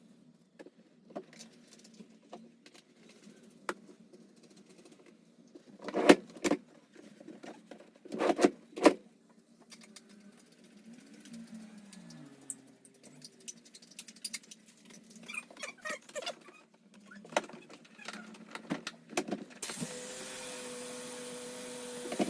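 Scattered clicks and knocks of handling, with a cluster of louder knocks around six to nine seconds in; a steady hiss with a held tone sets in near the end.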